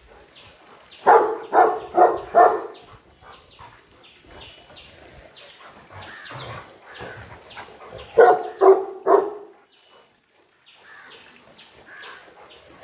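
A dog barking in two short bouts: four barks in quick succession about a second in, then three more about eight seconds in.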